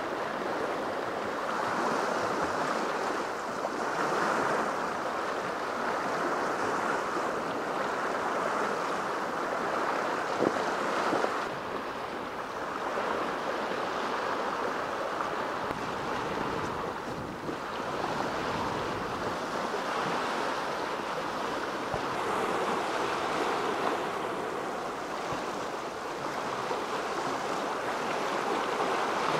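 Small lake waves washing against the shore, a steady wash that swells and eases every few seconds, with wind.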